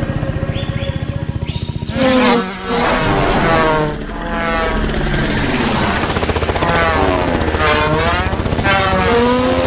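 Wing buzzing of several flying beetles, each buzz sliding up and down in pitch as the insects swoop past, beginning about two seconds in. Before that, steady held tones of background music.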